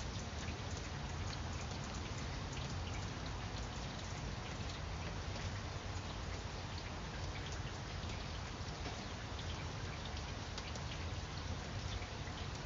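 Steady rain falling on leaves: an even hiss dotted with many small, sharp drop hits.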